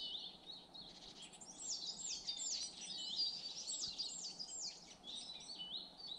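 Several small songbirds singing at once in a conifer wood: a chorus of high, thin notes, many sliding down in pitch and repeated in quick series.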